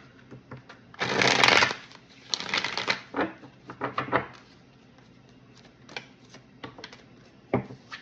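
A deck of cards being shuffled and handled: a short rush of card noise about a second in, followed by a run of quick clicks and taps and then a few scattered ones.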